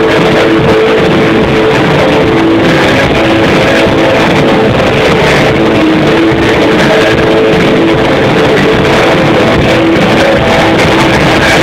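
Rock band playing live, electric guitars and drums, loud and unbroken, in a muddy recording of poor sound quality taken from within the crowd.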